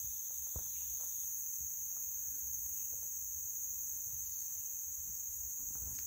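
Steady chorus of insects in woodland, a high continuous trill that never breaks, with one faint knock about half a second in.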